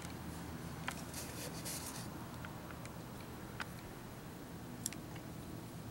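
Faint handling sounds of plastic fuel injectors: a few light clicks and taps as they are picked up off a mat and turned in the fingers, over a low steady hum.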